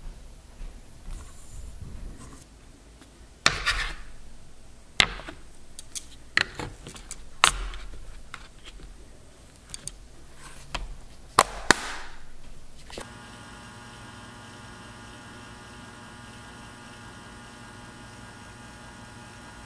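Tools and a plastic tool case being handled on a workbench: a string of sharp clicks and knocks. About thirteen seconds in these give way to a steady electrical hum with many overtones.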